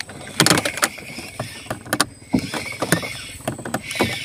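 Irregular knocks and scraping from handling on a small boat as the angler works the rod, over a steady hiss.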